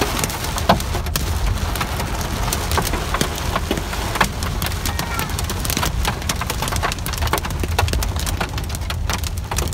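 Heavy rain pelting a moving car, heard from inside the cabin: irregular sharp ticks of drops striking the windshield and roof over a low rumble of the car on the wet road.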